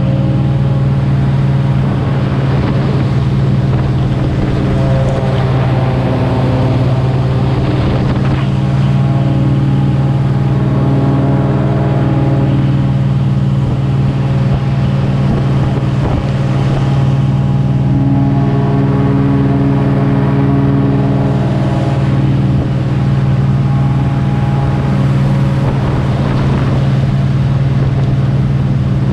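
Boat engine running steadily while under way: a loud, constant droning hum that holds an even pitch and level throughout.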